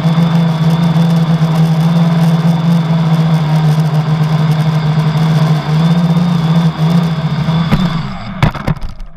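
Quadcopter's four 1000 kV brushless outrunner motors with 10x4.5 propellers buzzing steadily, heard from the GoPro mounted on the craft, with a steady high whine that the owner puts down to a bad motor bearing. Near the end the buzz drops away, with a few sharp knocks as it cuts out.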